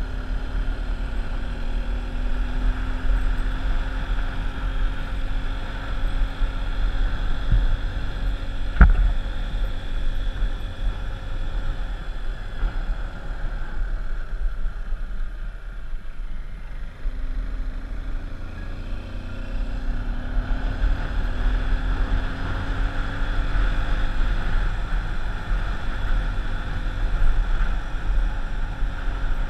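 A vehicle engine heard from on board, under heavy wind rumble on the microphone. The engine's pitch rises and falls as it changes speed, and it goes quieter for a few seconds about halfway through. There is one sharp click about nine seconds in.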